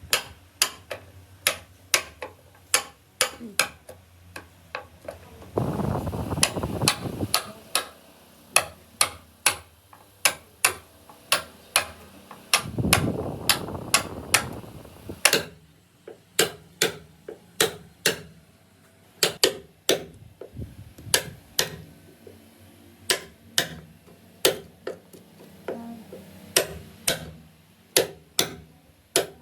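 Hand tool strikes on wood, a steady run of sharp taps about two a second, as in hammer-and-chisel carving. Twice, in the first half, a rough scraping noise lasting two to three seconds joins in.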